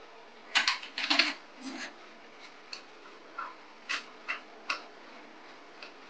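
Metal parts clicking and knocking as a dial indicator in an ER20 collet is handled and fitted up into a mini mill's collet nut. A cluster of loud sharp clicks comes about half a second to a second and a half in, then scattered lighter ticks.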